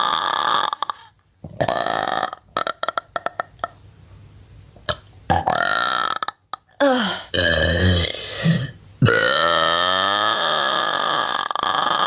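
A woman burping out loud, a run of several long, drawn-out belches with gaps between them. The last one lasts about three seconds, its pitch sinking as it goes, with a few short clicks heard early on between burps.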